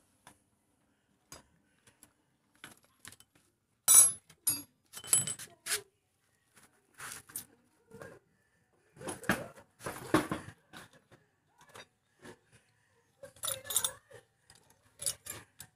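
Metal hand tools clinking and clattering against each other and the scooter's engine parts, in scattered knocks with quiet gaps between; the loudest clink comes about four seconds in.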